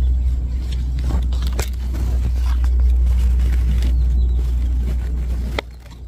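A steady low rumble with scattered rustles, snaps and clicks of leaves and twigs as a bush is parted to look into a small bird's nest. The rumble cuts off suddenly near the end.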